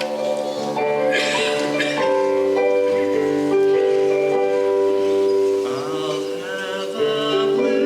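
High school choir singing long, held chords, with the notes changing every second or so.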